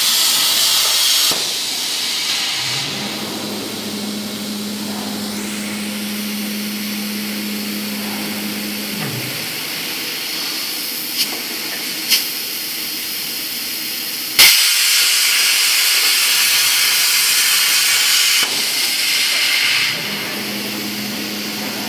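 CNC plasma cutter arc cutting steel plate with a loud hiss, which cuts off about a second in as the cut ends. The machine's drive motors then hum steadily while the torch moves, with two short clicks, and a sudden loud hiss starts in the middle and lasts about four seconds before the hum returns near the end.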